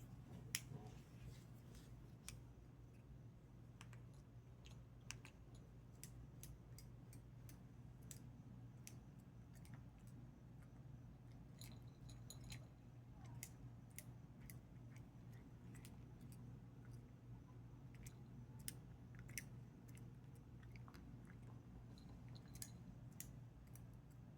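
Faint chewing while eating, with sharp, irregular clicks of the teeth over a steady low hum.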